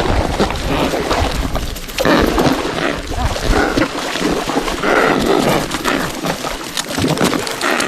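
Adélie penguins giving harsh, raspy calls several times over a steady noisy background.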